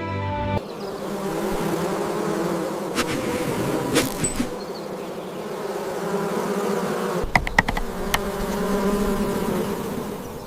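Insects buzzing in a dense, wavering drone, with a few sharp clicks about three to four seconds in and a quick cluster of them around seven to eight seconds. A piece of background music cuts off within the first second.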